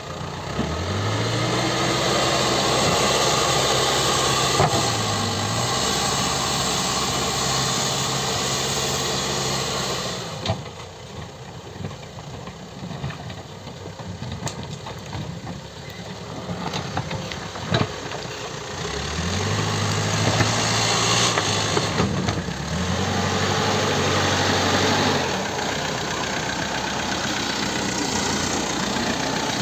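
CAT 434E backhoe loader's diesel engine running, revved up to a steady high pitch under working load, falling back toward idle, then revving up again. A few sharp knocks sound along the way.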